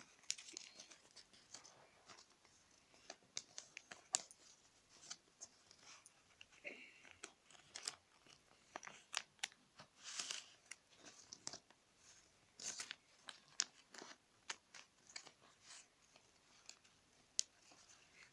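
A sheet of paper being folded and creased by hand, with scattered crackles and rustles as the folds are pressed down.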